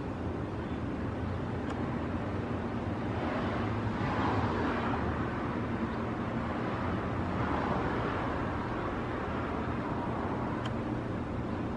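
Outdoor road-traffic noise, with two vehicles passing, swelling and fading about four and eight seconds in.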